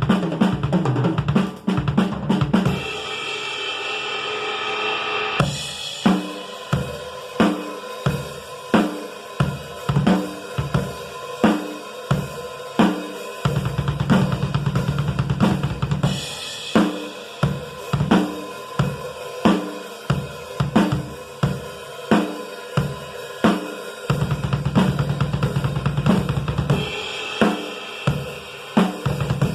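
Pearl Export EXL drum kit being played: a fast run of hits at the start, then a steady beat of bass drum, snare and cymbals with fills.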